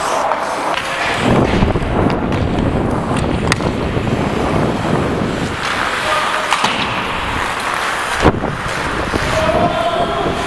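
Ice skate blades scraping and carving across rink ice, with wind rushing over a body-worn camera microphone as the wearer skates. A few sharp clacks come through, the loudest about eight seconds in.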